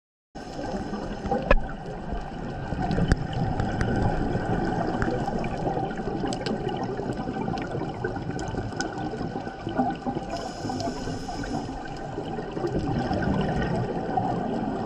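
Underwater sound of scuba diving: regulator breathing and exhaled bubbles gurgling and rumbling steadily, with scattered small clicks and a short hiss a little past ten seconds.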